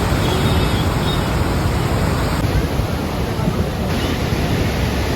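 Steady rushing noise of heavy rain and running water, with wind buffeting the microphone.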